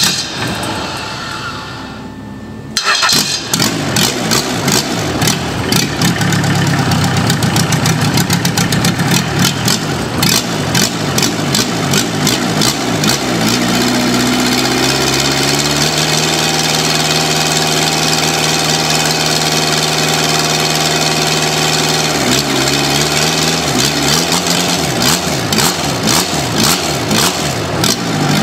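Toyota DZ four-cylinder diesel engine cranked by its starter and catching about three seconds in, then running with a diesel clatter. Its speed rises partway through, holds steady at idle for several seconds, and rises and falls again near the end.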